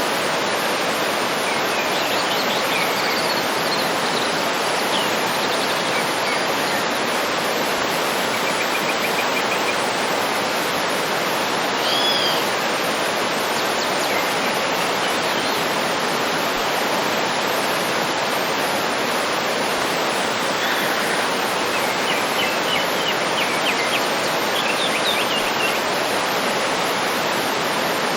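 Waterfall rushing steadily, with birds calling over it: short chirps and whistled phrases every few seconds, including a brief trill near the middle and a run of quick chirps near the end.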